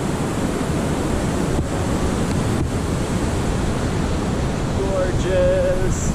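Steady, loud rushing noise with no rhythm, the kind made by fast-flowing water or strong wind, with a voice speaking briefly near the end.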